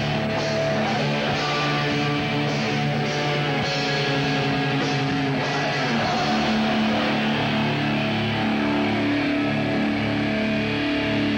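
A rock band playing live: loud electric guitar over drums, with cymbal hits that come every half-second or so in the first few seconds and thin out later.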